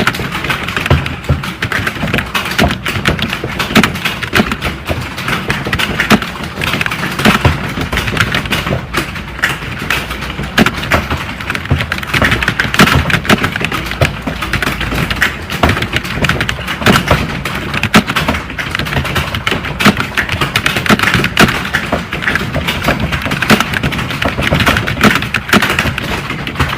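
Fast, continuous typing on a computer keyboard: a dense, uneven stream of key clicks and thuds, several strokes a second, without a break.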